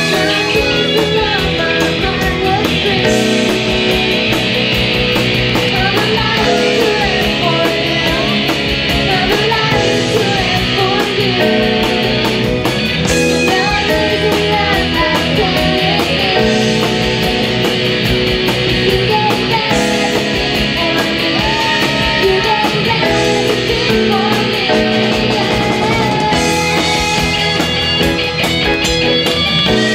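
Live rock worship band playing with electric guitar, keyboard and drums, a young girl singing the lead.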